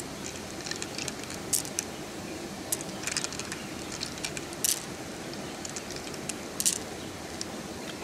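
Pearls clicking against one another as they are picked out of a freshwater mussel and gathered in a hand: a handful of short, sharp clicks at irregular moments, over a steady rush of flowing water.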